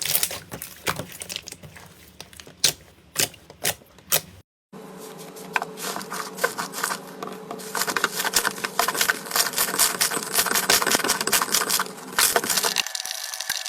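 Slime being squeezed and pressed by hand, making sharp crackling and clicking. A short break comes about four and a half seconds in, after which the crackling is denser and runs over a faint steady hum.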